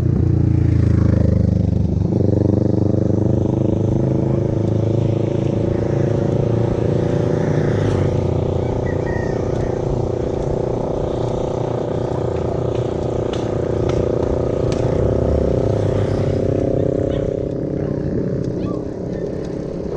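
A motor vehicle's engine droning steadily over a low rumble. Its pitch creeps slightly upward, and it fades out a few seconds before the end.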